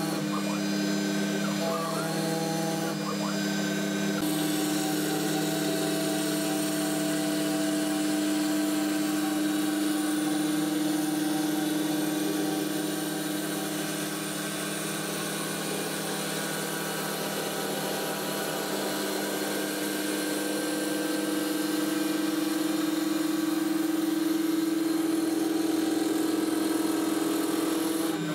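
CNC wood router running, its spindle and 8 mm ball-nose cutter milling a 3D airfoil shape into MDF at a steady whine. The machine's tones change pitch a few times in the first four seconds, then hold steady.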